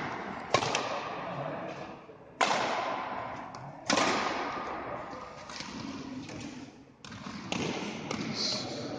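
Badminton rackets striking the shuttlecock in a rally: three loud, sharp smacks about one and a half to two seconds apart, each ringing on in the echo of a large hall, followed by softer knocks.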